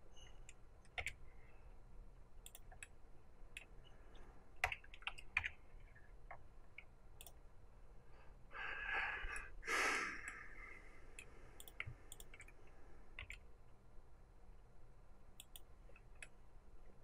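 Scattered clicks of a computer mouse and keyboard keys as objects are moved with shortcuts, with a brief breathy noise about nine seconds in.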